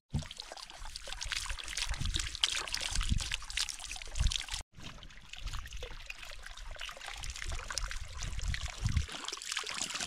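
Water from a hose trickling and pouring, splashing into a bucket and over wet skin, with a few low thumps and a brief break near the middle.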